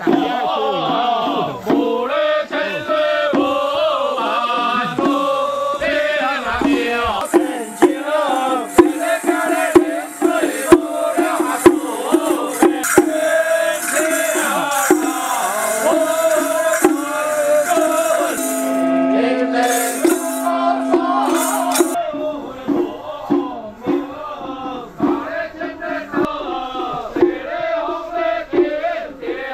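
Music with a wavering melody line over rattling percussion, with a run of sharp strikes in the middle and a bright hissing percussion wash later on.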